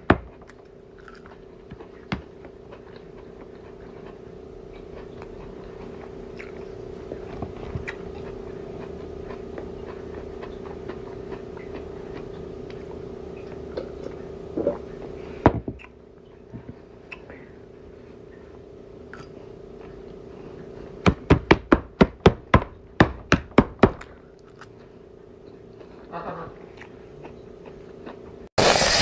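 Close-up chewing of crunchy salad, with runs of sharp crunches, the busiest stretch a few seconds before the end, over a steady low hum.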